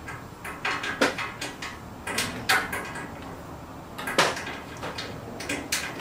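Shelf-mounting clips being fitted into the slots of a tool storage cabinet: a series of separate clicks and knocks as the parts are pushed into place.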